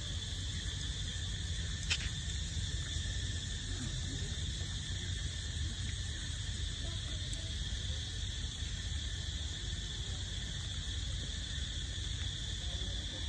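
Steady high-pitched chorus of insects buzzing without a break, with a single sharp click about two seconds in.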